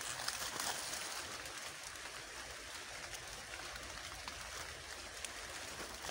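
Faint, steady background hiss, with a few light rustles and clicks in the first second.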